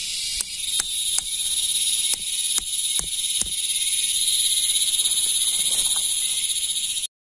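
The back of a hatchet knocking a tent stake into the ground: seven sharp knocks over about three seconds. A dense, steady, high insect chorus runs underneath and is the loudest sound, and everything cuts off abruptly near the end.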